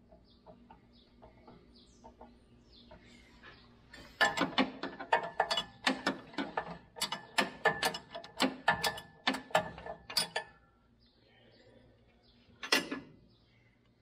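Metal clinking and clanking as parts inside a Massey Ferguson 1840 inline baler's bale chamber are handled. It starts with faint clicks, then turns into a quick, irregular run of sharp knocks for about six seconds, and ends with one louder clank near the end.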